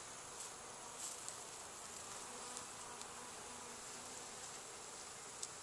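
Honey bees buzzing around an open hive: a faint, steady hum, with a few light clicks about a second in and near the end as the wooden frames are handled.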